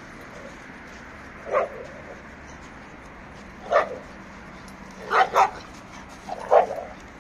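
Dog barking during a play chase: short single barks, one about a second and a half in, one near four seconds, a quick pair around five seconds and one more near the end.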